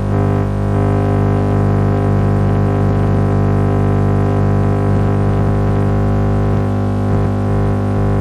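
FM broadcast on 89.8 MHz heard through a car radio, swamped by a loud, steady multi-tone buzz. The buzz is interference from a switched-mode power supply's chopping, which has completely upset the transmitter's stereo encoder.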